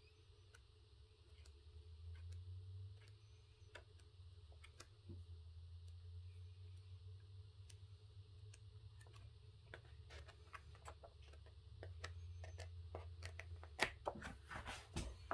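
Faint paper handling as a magazine's pages are turned: scattered soft clicks and rustles over a low rumble, getting busier near the end.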